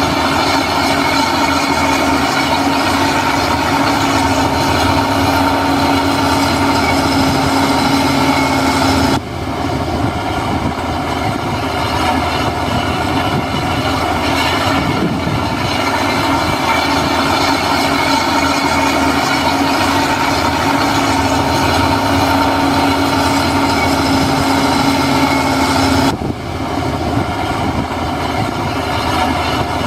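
Heavy diesel earthmoving machine running steadily under load, with a steady whine over the engine noise and a clattering, train-like rumble. The sound changes abruptly about nine seconds in and again near the end, then carries on.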